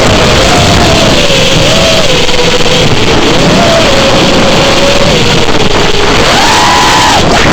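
FPV quadcopter's brushless motors whining under loud propeller and wind rush, their pitch stepping up and down with the throttle, then rising sharply about six seconds in before falling away at the end.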